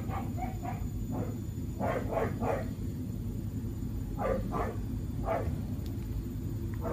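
Border collie giving short yips and whines in several quick clusters, over a steady low rumble.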